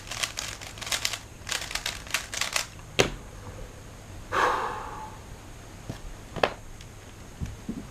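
Speedcube being turned, quick bursts of rapid plastic clicking, then a single sharp knock about three seconds in, a short rustle, and another knock.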